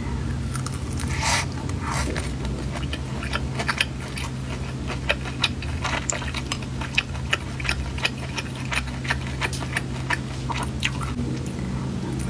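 Close-miked eating of grilled sausage: biting and chewing, with many short wet mouth clicks and smacks throughout, over a steady low hum.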